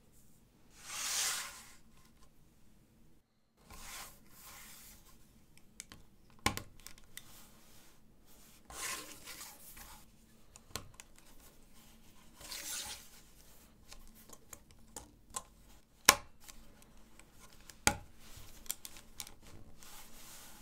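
LEGO 1x6 plates being handled and pressed together: several short, hissy scrapes of plastic sliding, and a few sharp clicks of plates snapping onto studs, the loudest about three-quarters of the way through.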